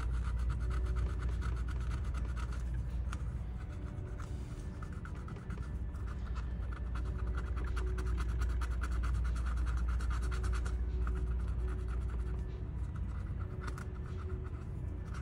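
Alcohol-dampened cotton swab scrubbing old, crusty factory thermal paste off a chip on a TV mainboard: rapid, continuous scratching strokes over a steady low hum.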